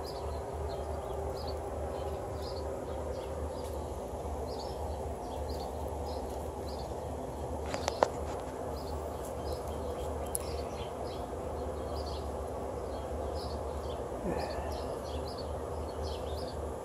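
Outdoor ambience: a steady low hum under short, high chirps of a bird or insect repeating about twice a second, with one sharp click about eight seconds in.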